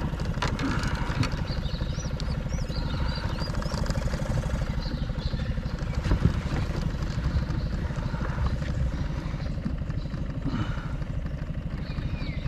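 Small boat outboard motor idling steadily, a fast even low putter.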